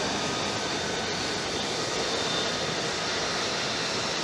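F-35 Lightning II fighter's F135 turbofan engine running as the jet taxis: a steady jet rush with faint thin whining tones over it.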